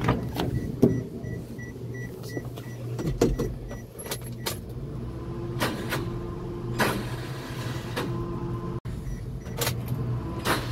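Daihatsu pickup's starter motor being cranked in short tries, each a whirring grind of about a second, after a few sharp clicks early on. The starter's drive clutch is loose and slips instead of biting the flywheel, so the engine does not turn over.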